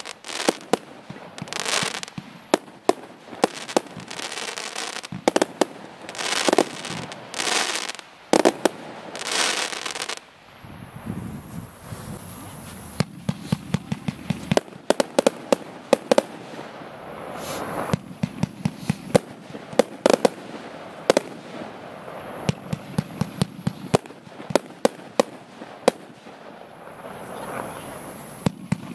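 Consumer compound firework battery firing, a long run of sharp reports and launch thumps. In the first ten seconds several longer noisy bursts of about half a second stand out. After about eleven seconds the shots come in rapid volleys.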